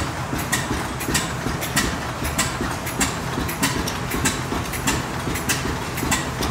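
Antique 10 hp Mogul single-cylinder gas engine running steadily, with a sharp click coming evenly a little under twice a second over a low rumble.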